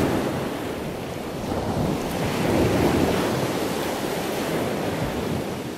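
Shallow surf washing up on a sandy beach: a steady rush of breaking-wave noise that swells about halfway through and eases near the end.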